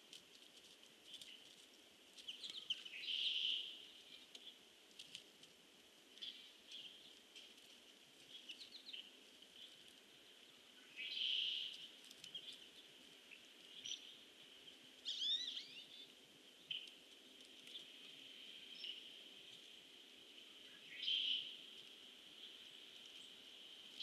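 Red-winged blackbird calling: three buzzy calls, each under a second and eight to ten seconds apart, with short chip notes and a few quick whistled glides between them, over a steady high-pitched background hiss.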